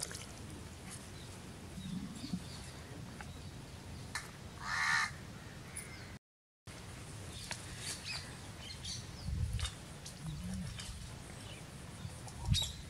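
A bird calls once, a single harsh call about five seconds in, over a steady outdoor background. The sound drops out completely for half a second a little after the middle.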